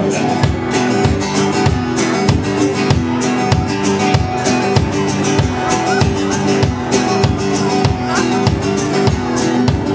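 Live band playing an instrumental passage with strummed acoustic guitar, electric guitar and plucked upright bass, over a steady beat of about two low thumps a second.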